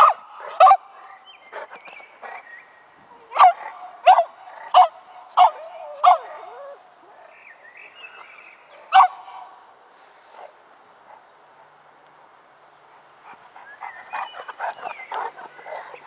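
Cavalier King Charles spaniel barking: two sharp barks at the start, a run of five evenly spaced barks a few seconds in, one more near the middle, and a quicker, quieter flurry of barks near the end.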